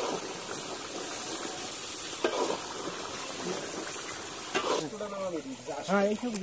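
Onion-and-chili masala sizzling in hot oil in a large metal karahi, stirred with a long metal ladle that scrapes the pan every couple of seconds.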